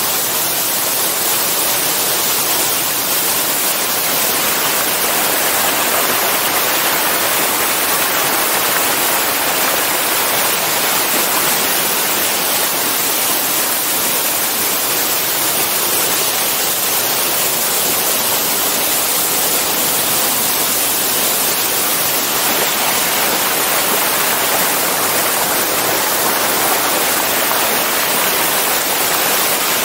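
Waterfall pouring over a rock ledge, heard close from the top of the falls: a loud, steady rush of falling water.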